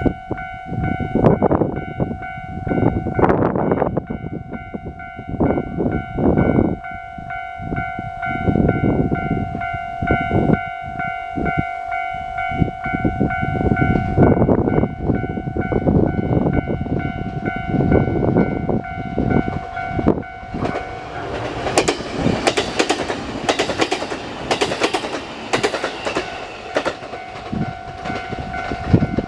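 A level-crossing alarm rings steadily while the Resort Shirakami Aoike train passes. Low rumbling rises and falls at first, and the wheels' clatter over the rail joints is loudest in the last third.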